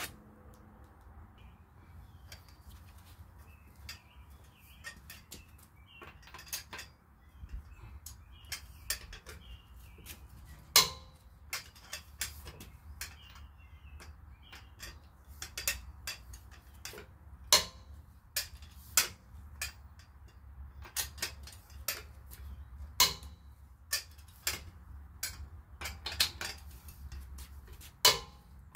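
Irregular sharp metal clinks of a socket and long breaker bar on a car wheel's lug nuts as they are fitted and turned, a few clinks much louder than the rest.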